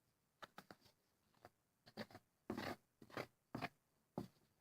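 Spoon stirring a thick, chunky cornstarch and shampoo mixture in a bowl: faint, irregular short scrapes and crunches, about a dozen strokes.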